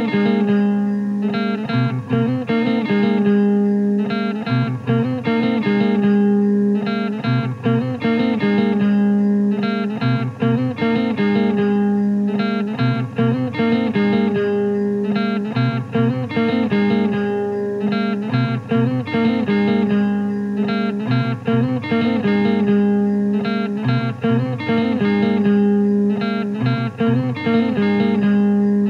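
Instrumental music: a guitar playing a repeating figure that cycles every few seconds.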